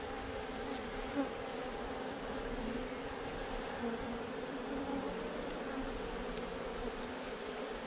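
A mass of Africanized honey bees buzzing around their disturbed tire nest during a cutout: a steady, many-toned hum, with one short tap about a second in.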